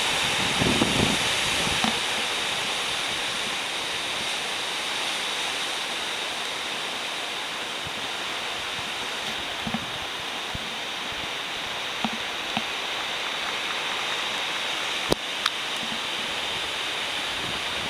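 Heavy surf from a typhoon swell on the open Pacific coast: a steady wash of breaking waves with no lull. Two sharp clicks come about fifteen seconds in.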